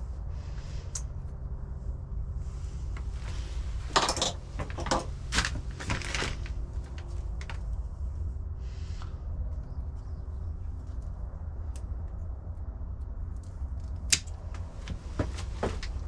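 Light metallic clicks and clunks of a Shimano XTR 11-speed rear derailleur and a hand tool being handled and fitted to a bike frame's rear hanger, a flurry of them about four to six seconds in, over a steady low hum.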